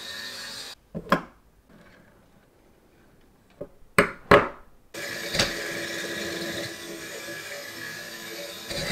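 Lego Technic train's electric motor and gears running along a plastic chain-rack track with a steady whir that cuts off suddenly. Several sharp plastic clicks follow as Lego pieces are handled and snapped on. The motor and gears start running again about five seconds in.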